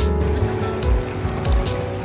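Background music with a steady beat: held tones over low, regular thumps and light ticks.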